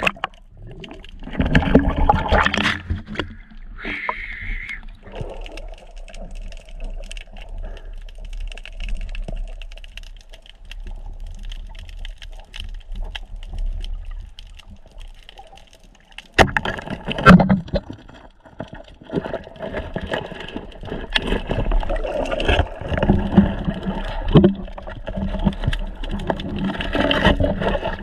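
Water rushing and gurgling around an underwater camera as a spearfisher swims and dives. It is loud for a couple of seconds near the start, quieter through the middle, then loud and churning again for the last third, with a faint steady hum underneath.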